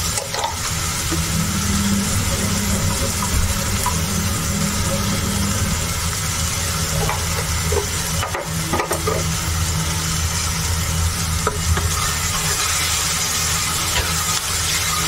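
Chopped onions frying in hot oil in a stainless steel kadhai, sizzling steadily over a low hum, while they are browned with a little salt. A spatula stirs and scrapes the pan near the end.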